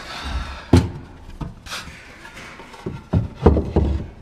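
Irregular wooden knocks and clunks as a cabinet filler and tools are handled and set down on a workbench, the loudest about a second in and a quick cluster near the end.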